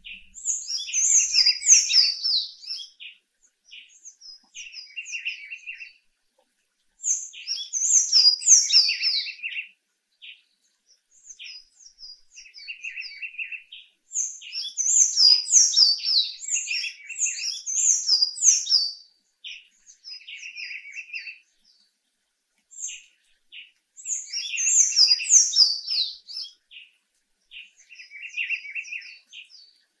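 Sayaca tanager singing: about four bouts of rapid, high-pitched twittering, each a few seconds long, with scattered single notes in the gaps between them.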